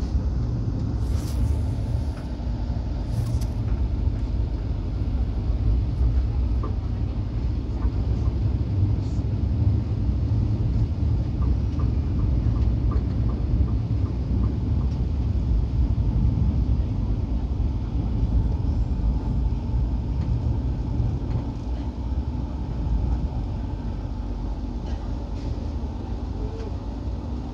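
Inside a moving KA Gajayana passenger train: the carriage running along the rails with a steady low rumble.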